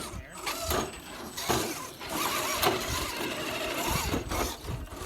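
RC rock crawler's electric motor and gear drivetrain whirring as it crawls, with several sharp knocks and scrapes.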